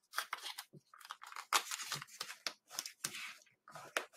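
Origami paper being folded and creased by hand: a run of short, irregular crinkles and rustles as a flap is folded over and pressed flat.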